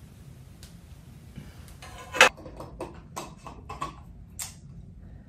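Glass ball jar and its lid being handled: a run of sharp clicks and knocks, the loudest about two seconds in, over a low steady hum.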